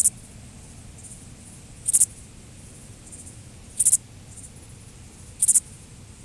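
Grasshopper stridulating: four short, very high-pitched buzzy bursts about two seconds apart, with fainter chirps in between over low background noise.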